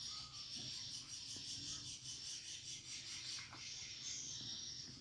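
Swiftlets twittering: a dense, high-pitched, buzzy chirping with a fast pulsing rhythm.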